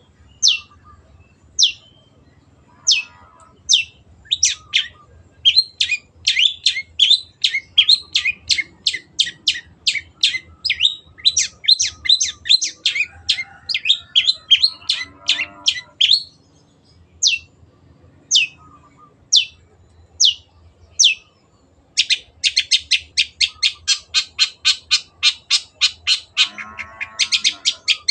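Long-tailed shrike calling: sharp, short, downward-sliding notes, at first about a second apart, then in quick runs of several a second. After a few single notes comes a fast rattling series of around eight notes a second near the end. A few lower warbled phrases come in between.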